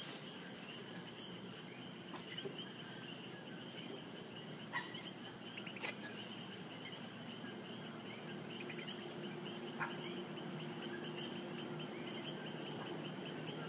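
Faint, steady chirring of night insects, with a few soft clicks scattered through it.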